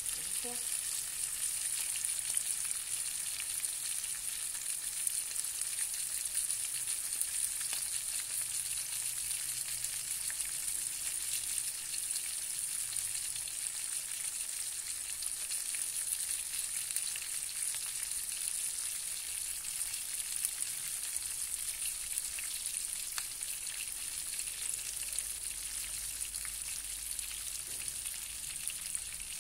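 Oil sizzling steadily in a frying pan as a thick piece of fish pan-fries with garlic and shallots: a steady high hiss with fine crackling.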